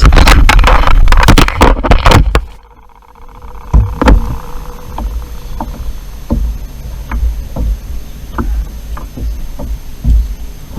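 Handling noise from a fishing kayak on the water: heavy rumbling noise and a busy spell of knocks for the first two seconds or so, a brief drop in level, then lower rumble with scattered sharp knocks against the hull and gear.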